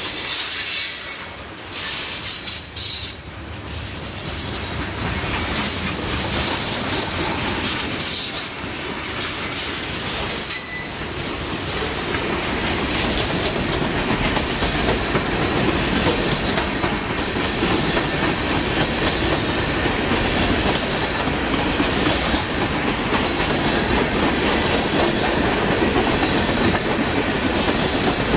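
Freight cars rolling past on steel wheels: a steady clattering rumble from the wheels on the rail, with wheel squeal in the first few seconds. The rumble grows louder about halfway through.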